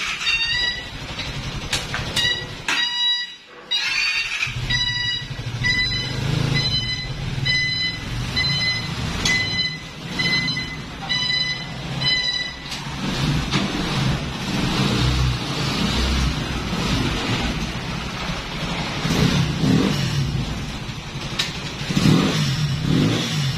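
400cc cargo ATV's engine running as the machine is backed up, with a reverse buzzer beeping about one and a half times a second. The beeping stops about 12 seconds in while the engine keeps running, its pitch rising and falling.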